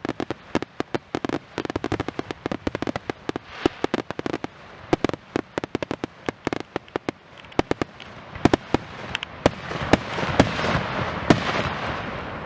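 Aerial fireworks going off in a rapid barrage of sharp bangs and crackles, getting denser toward the end with several heavy booms.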